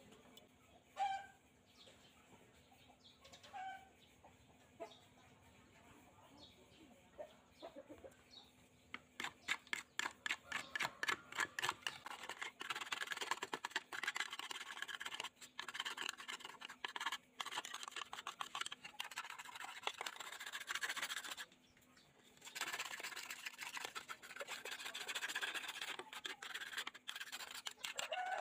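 A few short faint calls in the first seconds, then from about nine seconds in, rapid scratchy scrubbing strokes of a stiff brush on the plastic fuselage of an old radio-controlled aircraft, scouring off caked dirt. The scrubbing pauses briefly about twenty-one seconds in.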